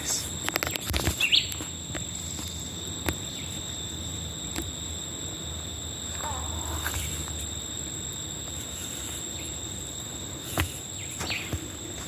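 Woodland ambience: a steady high-pitched insect drone runs throughout, with a few short bird chirps, one rising about a second in and another near the end, and a few soft knocks.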